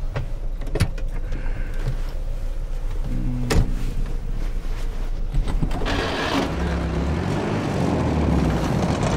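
Police van's engine running steadily, with two sharp knocks in the first few seconds; about six seconds in the engine revs up louder as the van drives off through the snow.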